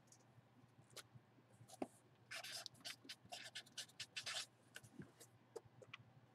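Felt-tip marker writing on a cardboard box: a quick run of short, scratchy strokes starting a couple of seconds in and lasting about two seconds, faint overall, with a few isolated clicks before and after.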